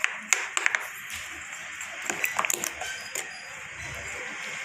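Metal spoon stirring thick ground moong dal batter in a bowl, with scattered light clicks of the spoon against the bowl, most of them in the first second.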